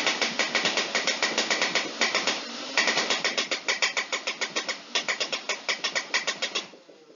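Nerf Rival Prometheus foam-ball blaster firing full-auto: a rapid, even stream of shots, about six or seven a second, over its spun-up flywheel motors, with two short breaks, stopping shortly before the end.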